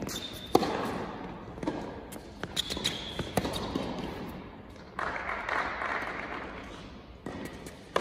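Tennis ball struck back and forth with racket strings on an indoor hard court, the hits coming roughly a second apart, with short high squeaks of shoes on the court surface. About five seconds in comes a two-second rush of noise.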